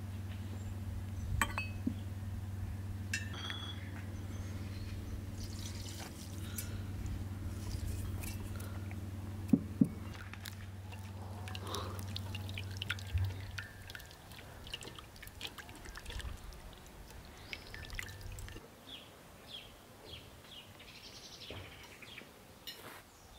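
Melted butter poured from an enamel pot into an enamel bowl of flour and worked in by hand, with light clinks of dishes and two sharp knocks about ten seconds in. A low steady hum runs underneath until about eighteen seconds in, and faint short chirps follow near the end.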